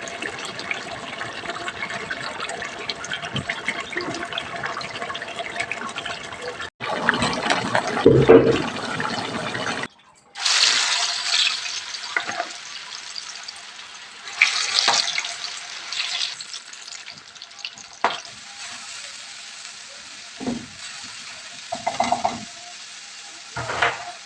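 Kitchen cooking sounds in several short cuts: food frying and sizzling in a pan, with stirring and scattered knocks of a utensil against cookware. There is a louder stretch a little after the first cut.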